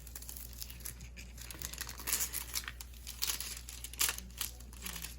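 Plastic packaging crinkling and rustling in irregular crackles as a diamond painting kit is unwrapped by hand.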